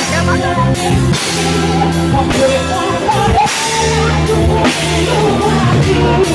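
Live band playing a rock song: drum kit with cymbals, bass and electric guitar holding sustained chords, and singing over the top.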